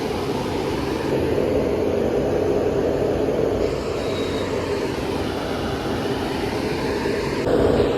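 Steady rumble of a bus engine running.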